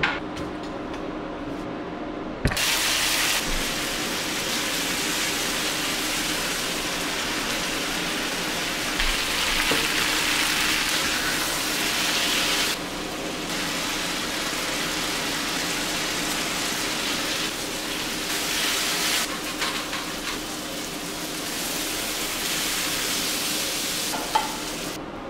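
Food sizzling in a frying pan, a steady hiss that starts suddenly about two and a half seconds in and eases slightly about halfway through.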